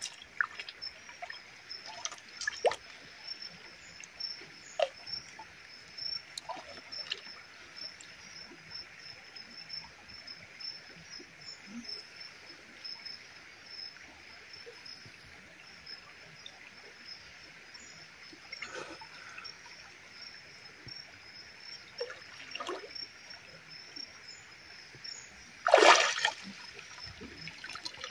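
Shallow creek water trickling and lapping, with small splashes as a swimmer moves through it. About two seconds before the end comes one loud splash as he dives headfirst under the surface.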